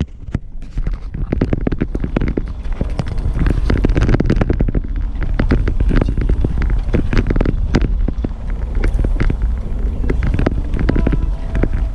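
Vehicle driving slowly over a rough, unpaved mountain track: a steady low rumble with frequent knocks and rattles as it jolts over the ruts and stones.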